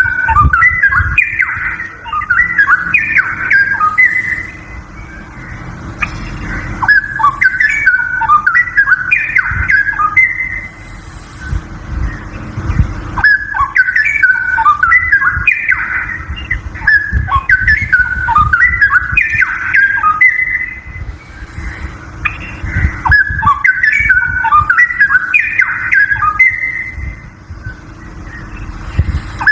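Straw-headed bulbul (cucak rowo) singing loud, rich, bubbling warbled song phrases of a few seconds each, repeated after short pauses, over a steady low hum.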